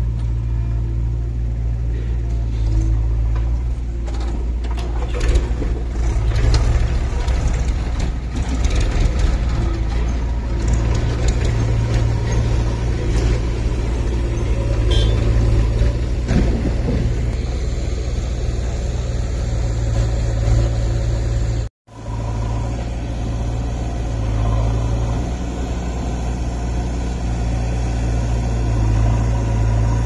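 Diesel engines of a JCB 3DX backhoe loader and a Powertrac 434 DS tractor running steadily with a heavy low rumble, with scattered knocks in the first third. The sound cuts out for an instant a little over two-thirds of the way in.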